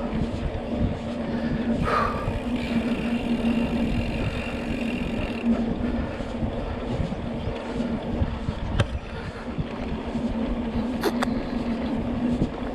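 Mountain bike ridden along a dirt trail: a steady rumble of tyres on the ground mixed with wind on the microphone, a steady low hum, and a few sharp clicks and rattles of the bike about two-thirds of the way through.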